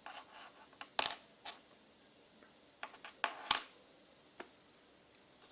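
Small objects being handled on a workbench: a scattered series of light clicks and knocks, with a soft rustle at the start.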